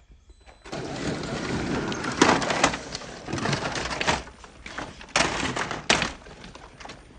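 Scale RC rock crawler with a hard plastic Jeep body tumbling down a slope of loose rock: a stretch of crunching and scraping on stones, with several loud knocks as the body hits the rocks.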